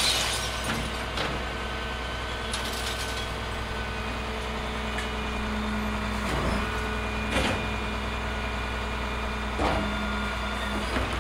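Garbage truck idling, its engine running steadily with a held hum, and several short knocks from the truck scattered through.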